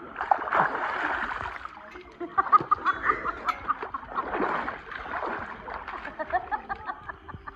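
Pool water splashing and sloshing as a swimmer reaches the ladder and hauls himself out, water streaming off him. A quick run of short high-pitched notes comes about two and a half seconds in and again near the end.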